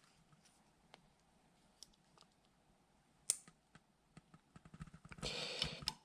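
Faint small clicks of small steel parts being handled and fitted into an AR-15 lower receiver while the bolt catch is reinstalled, with one sharper click about three seconds in and a brief scraping rustle near the end.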